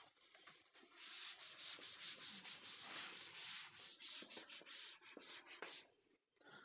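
A blackboard duster scrubbing chalk off a chalkboard in quick back-and-forth strokes, starting about a second in.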